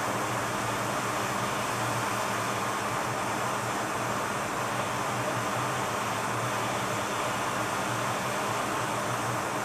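Hot air rework station blowing a steady hiss of hot air onto the SMC chip of a MacBook Air logic board, heating its solder so the chip can be lifted off. A low hum runs steadily underneath.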